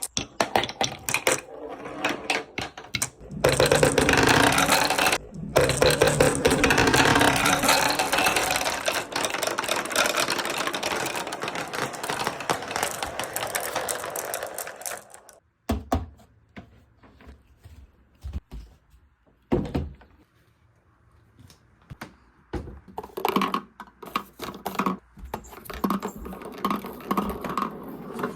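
Many marbles and balls rolling and clattering down a handmade marble run. Scattered clicks build into a dense, loud clatter from about three seconds in until about fifteen seconds, then thin to a few separate knocks before a quicker run of clicks near the end.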